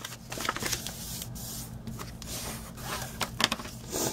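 A sheet of white cardstock being folded along its score lines and creased flat by hand: paper rubbing and scraping, with a few sharp clicks.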